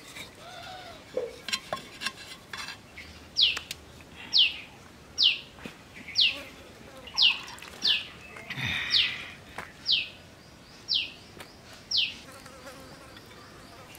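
A bird calling with a short high note that falls in pitch, repeated about once a second, roughly ten times. Under it are faint rustles and light clinks from a chicken being plucked in an aluminium pot.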